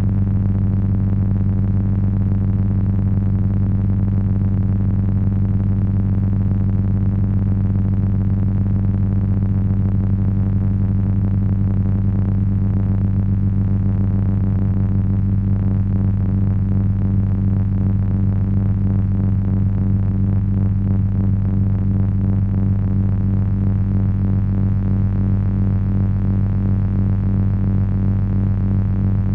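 Heavy electronic drone from three Frequency Analyzer v1 ring-modulator units driven by an HP 200C audio oscillator. A loud, steady deep hum runs throughout, with a pulsing, wavering buzz of overtones above it.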